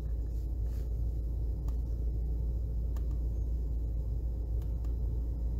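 Opel Zafira 1.8 four-cylinder petrol engine running steadily while still warming up, a low even rumble with no stumble heard.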